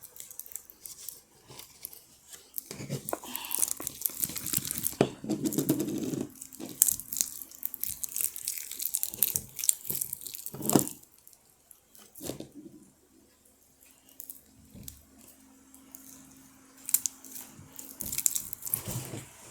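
Sticky butter slime being stretched, pulled apart and squished by hand, giving irregular crackles and tearing snaps in bouts. The slime is really sticky, clinging to the hands.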